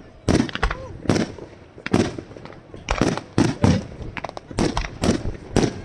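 Aerial fireworks exploding: a rapid, irregular series of sharp bangs, about two a second, each trailing off in a short echo.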